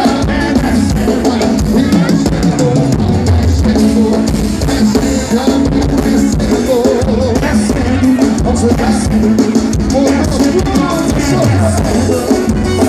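Live forró band music, loud and continuous, with a drum kit keeping a steady beat under the melody.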